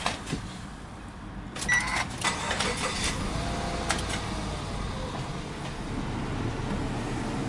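Subaru Impreza's flat-four boxer engine being started from inside the cabin: a few clicks and a short beep about two seconds in, then the engine running at a steady idle.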